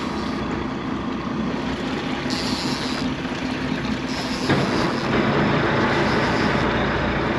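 Boat engine running steadily under a wash of wind and water noise, with a brief hiss about two and a half seconds in.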